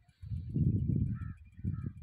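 Low, gusting rumble of air buffeting the microphone, with a few short high chirps of a small bird about a second in and near the end.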